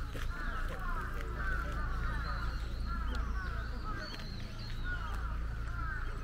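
Many birds calling at once, a dense chatter of short, overlapping calls, over a low steady rumble.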